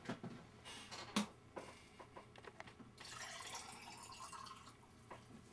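Liquid poured from a container into a tall drinking glass. The pour starts about halfway through and lasts about two seconds, after a few light knocks and clicks.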